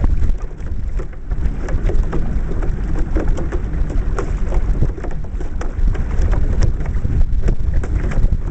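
Water splashing and lapping against a pedal boat's hull as it moves through choppy water, a dense patter of small splashes over a heavy rumble of wind buffeting the microphone.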